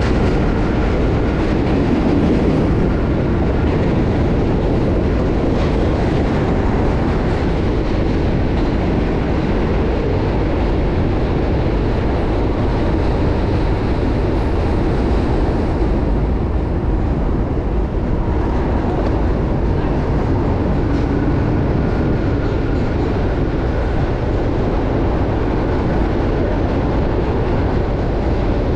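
A subway train running alongside, a steady loud rumble with clatter from the rails. A faint high wheel squeal comes near the start and again about three quarters of the way through.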